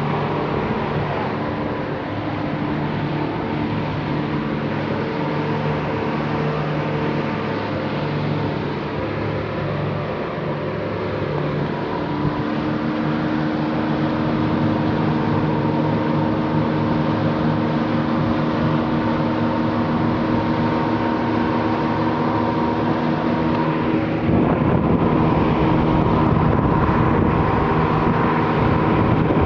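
Motorboat's engine running steadily at speed under the rush of water from the wake and hull. The engine's note shifts about twelve seconds in, and wind buffets the microphone more from near the end.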